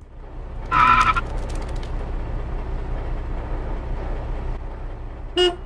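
Road traffic rumbling steadily, with a short loud blare about a second in and two quick car-horn toots near the end.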